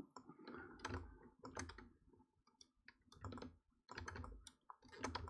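Faint, irregular clicking and tapping of a computer keyboard and mouse, in small clusters of clicks with soft low thumps.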